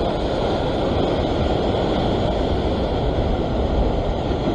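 Steady wash of ocean surf breaking and streaming over a rock ledge, with wind on the microphone.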